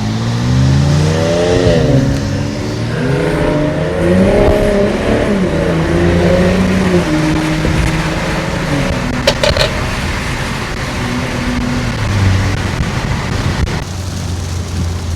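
Car engine accelerating. Its pitch climbs, drops at a gear change about two seconds in, climbs again, then eases off and settles to a lower steady run.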